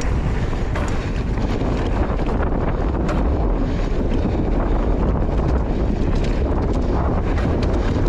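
Wind buffeting the rider-mounted camera microphone during a mountain-bike descent on a dirt singletrack trail, a steady low rumble, with scattered clicks and rattles from the bike over the trail surface.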